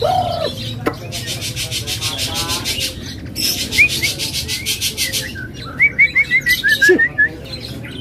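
White-rumped shama (murai batu) singing in full song: two long, rapid, buzzy rattling trills, then a quick run of short whistled notes.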